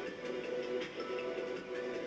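Background music with steady held tones and a light, regular beat.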